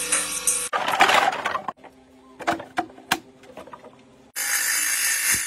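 Horn-comb workshop sounds in quick cuts: a motor-driven wheel running and grinding against a horn comb, then a few sharp knocks of raw animal horns being handled, then grinding noise again near the end.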